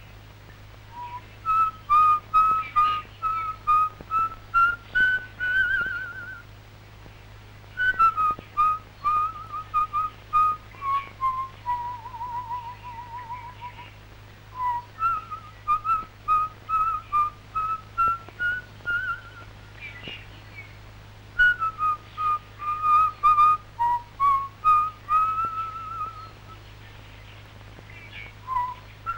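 A whistled tune of short, detached notes in phrases of a few seconds, with brief pauses between the phrases. Under it runs a steady low hum, with scattered faint clicks.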